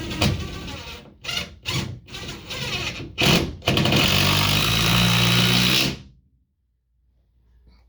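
Handheld power drill run in several short bursts, then a steady run of about two seconds that stops suddenly, while working the TV wall mount into the wall studs.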